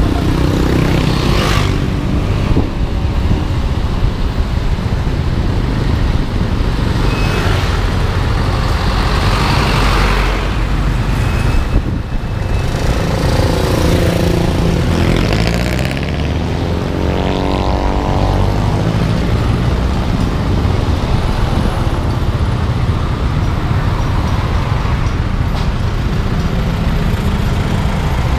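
Road traffic heard from a motorcycle moving slowly behind a truck: engines running steadily, with a few short hisses and an engine note that rises about two-thirds of the way through.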